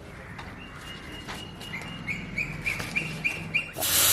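A small bird chirps in short, repeated high notes, about two or three a second. Near the end, a loud steady hiss starts suddenly: the holding-gas charge escaping from the newly opened copper pipe of a split AC's indoor unit.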